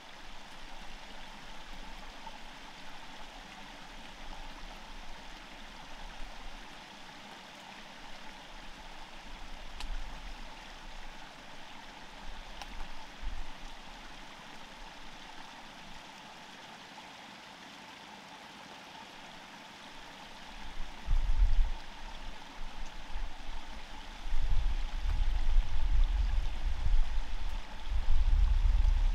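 Steady rushing of a flowing stream. From about two-thirds of the way in, loud low rumbles come and go over it.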